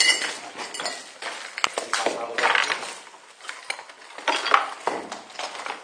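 Irregular clinks, rattles and knocks of equipment being carried and handled, with a few sharp metallic clicks among the rustling.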